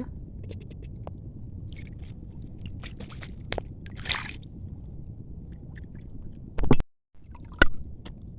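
Shallow water sloshing and splashing around a wading angler, with scattered small clicks. A loud knock comes near the end, then the sound cuts out for a moment, then another sharp knock.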